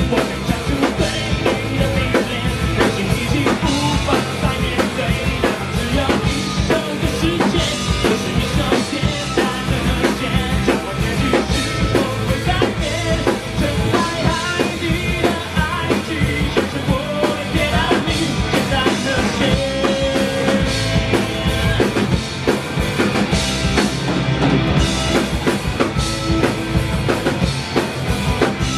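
Rock band playing loudly and steadily, a drum kit keeping a driving beat under sustained instruments, with no break.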